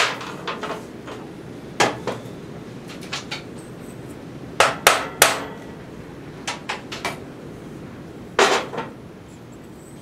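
Hammer tapping the cylinder head of a Tecumseh 5 hp Snow King snowblower engine to break it loose from the block once its bolts are out. Sharp metallic knocks at uneven intervals, loudest in a quick run of three about halfway and one firm strike near the end.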